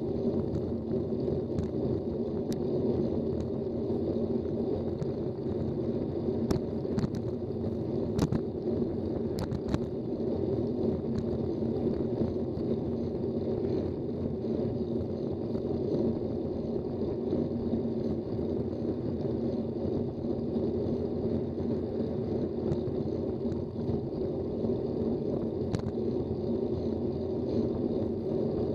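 Steady low rumble of wind and road noise on a bicycle-mounted action camera's microphone while riding, with a few sharp clicks or knocks from bumps about a quarter of the way through.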